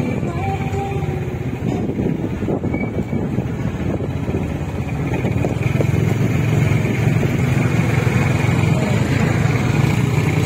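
Vehicle engine running steadily while riding along, with road and wind noise.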